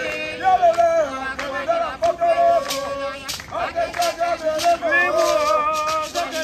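A man's voice singing a chant in long held, wavering notes, with a few sharp percussive strikes.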